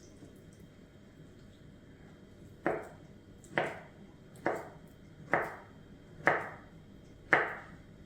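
Six sharp knocks, evenly spaced about a second apart, each with a short ringing tail.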